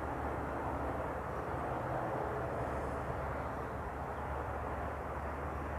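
Sydney Trains Tangara electric passenger train running away from the platform: a steady rumble with a low, even hum underneath.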